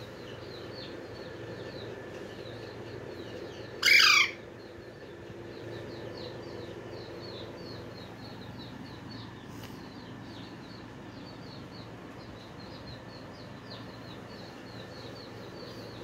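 Pet green parakeet giving one loud, harsh squawk about four seconds in, falling in pitch, over faint, rapid chirping that continues in the background.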